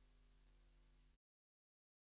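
Near silence: a faint steady low hum that cuts off suddenly about a second in, then dead silence.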